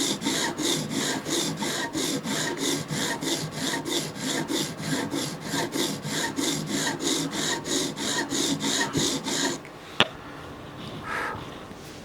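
CBN sharpening stone on a Hapstone guided sharpener scraping back and forth along the steel edge of a Microtech Combat Troodon tanto blade, in quick, even strokes about three to four a second. The strokes stop about nine and a half seconds in, followed by a single sharp click.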